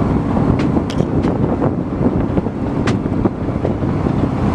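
Fishing boat's engine running steadily, with wind on the microphone. A few sharp knocks sound over it, the loudest about three seconds in.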